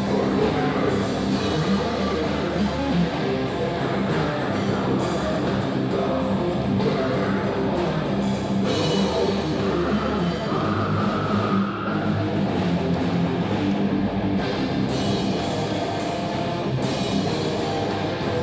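Heavy metal band playing live: electric guitar and drum kit, loud and continuous.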